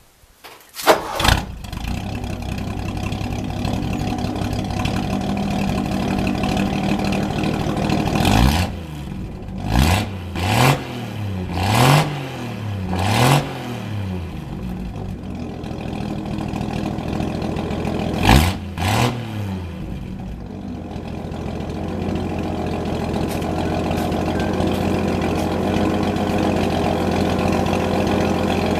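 Engine of a 1961 UNI running with no muffler: it starts about a second in, is revved up four times in quick succession and once more a few seconds later, and otherwise idles steadily.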